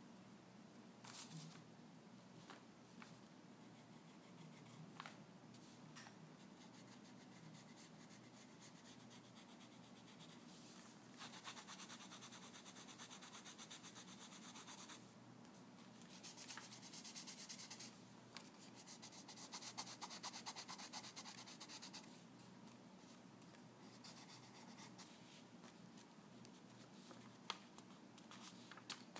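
Graphite pencil scratching on paper in quick back-and-forth strokes, coming in several runs of a few seconds each in the middle, faint. A few light ticks of the pencil touching the paper come between them.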